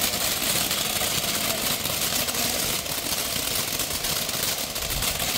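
Triangle ground fountain firework spraying sparks, with a steady hiss and fine crackling.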